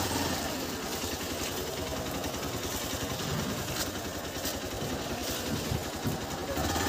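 Small two-wheeler engine idling steadily at low revs.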